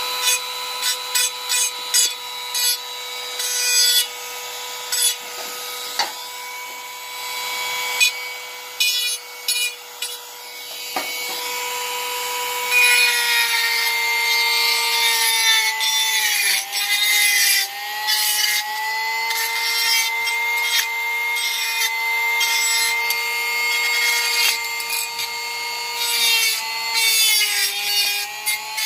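Dremel rotary tool running at a steady high whine while its bit grinds and deburrs the inside of a slotted aluminum tube. Rough scraping comes in short bursts at first and becomes nearly continuous about halfway through, and the pitch sags briefly twice as the bit bites into the metal.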